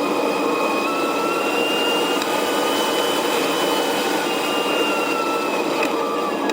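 Steady rushing airflow over a radio-controlled ASW-28 scale sailplane in flight, heard from inside its cockpit, with a thin whistle that slowly rises and falls in pitch.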